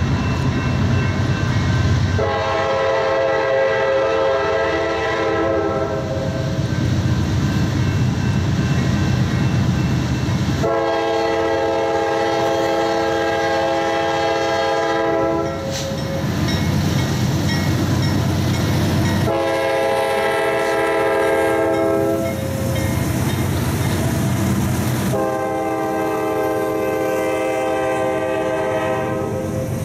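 Norfolk Southern GE freight locomotive sounding its multi-chime air horn in the long, long, short, long grade-crossing pattern as it approaches, with the diesel's low rumble between blasts.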